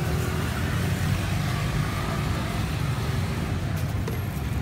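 Steady low rumble of road traffic passing a street-side stall.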